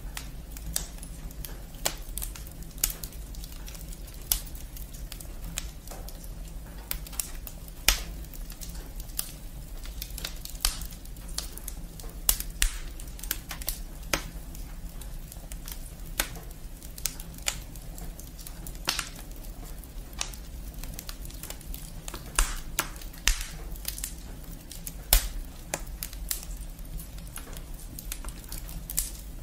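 Wood fire burning in a fireplace, logs and branches crackling with irregular small pops and a few louder snaps over a steady low rumble.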